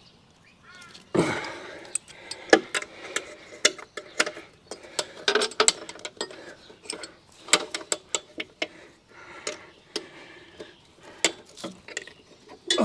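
Hand tools and metal parts clinking and clicking irregularly against each other as a motorcycle front end is bolted back together, with a louder knock about a second in.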